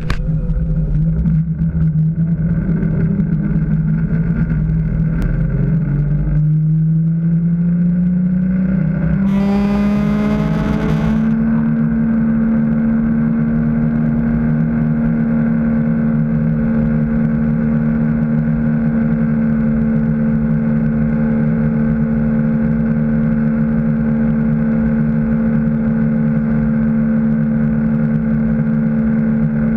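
Malibu Response LXi ski boat's inboard engine throttling up to pull a water skier out of the water, its pitch climbing for about five seconds and then holding steady at skiing speed. A brief hiss comes in about ten seconds in.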